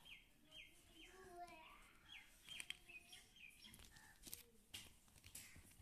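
Faint chirping of a small bird: a run of short, falling chirps, about two a second, mostly in the first half. Scattered light clicks and taps come from plastic toy figures being handled.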